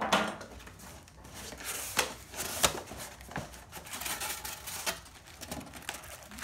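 Cardboard shipping box being opened and unpacked by hand: flaps and a cardboard insert rustling, scraping and sliding, with several sharp knocks of cardboard, the loudest about two and a half seconds in.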